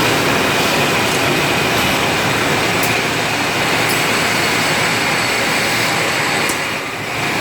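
Industrial wet/dry vacuum cleaner running steadily: a loud, even noise with a faint high whine, dipping briefly near the end.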